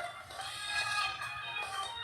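Music playing: a melodic piece with several held, shifting tones.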